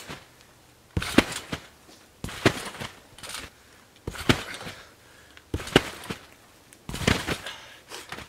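Trampoline bouncing: a thump from the frosty mat and its springs at each landing, about six landings roughly a second and a half apart.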